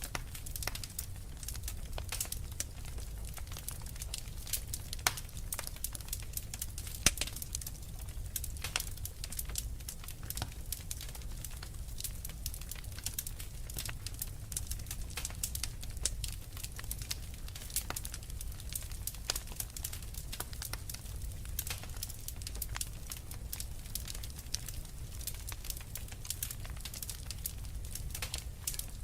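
Wood fire burning in a fireplace, crackling with many small irregular pops over a low steady rumble of the flames, and two louder pops about five and seven seconds in.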